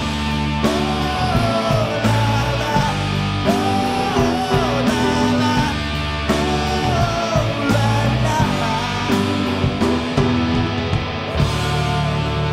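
Rock band playing live: electric guitars, bass and drums, with a lead melody of sliding, wavering notes on top.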